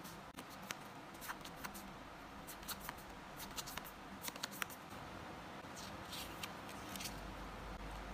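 Hands opening and handling a packet of photo cards: scattered small clicks, snips and crinkles of the wrapper and cards, faint against room hiss.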